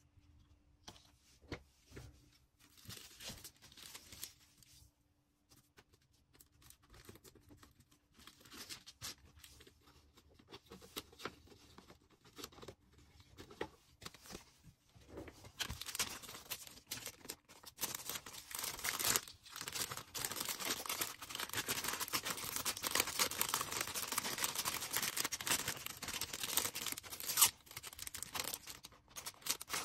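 Packaging being handled by hand: sparse light taps and rustles at first, then from about halfway a dense, continuous crinkling and tearing of packaging material.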